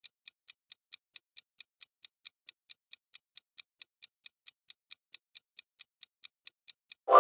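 Countdown-timer sound effect ticking evenly, about four and a half ticks a second, like a fast clock. A bright ringing tone cuts in right at the end as the timer runs out.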